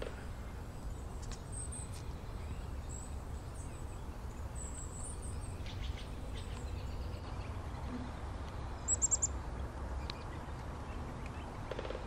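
High, thin chirps of small songbirds over a steady low outdoor rumble. About nine seconds in comes a quick run of four high notes, the loudest sound.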